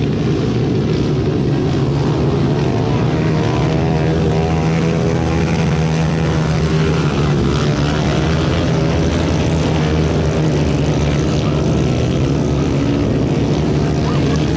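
Engines of a pack of Honda XRM 125 underbone motorcycles, small four-stroke singles, revving under load as they race through deep mud. The revs waver up and down, with the engines overlapping into one steady drone.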